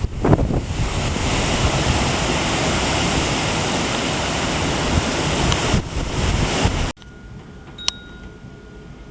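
Hurricane wind rushing and gusting, buffeting the microphone in a loud, steady noise. It cuts off abruptly about seven seconds in to a much quieter scene with a faint steady tone and a single sharp click.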